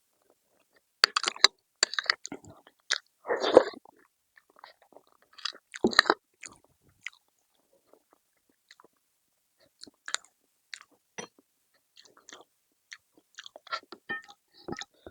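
Close-miked mukbang eating: a person biting and chewing food with its mouth close to the microphone, in irregular wet clicks and crunches. The loudest is a longer burst about three and a half seconds in, and the sounds thin out for a while in the middle before picking up again near the end.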